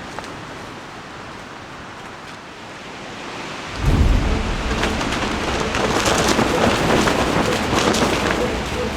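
Gale-force storm wind, building and then hitting hard about four seconds in with a deep rumble of gusts buffeting the microphone, which stays loud from then on.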